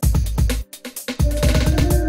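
Loud electronic dance music with a heavy, fast kick-drum beat; held synth notes come in just past the middle.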